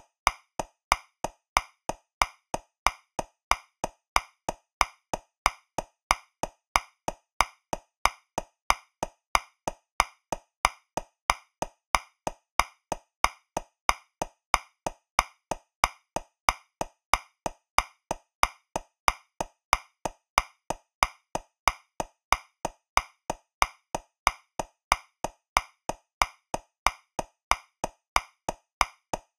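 Metronome clicking steadily at 185 beats per minute, about three clicks a second. It is in 2/4 with an accent on the first beat, so every other click is louder.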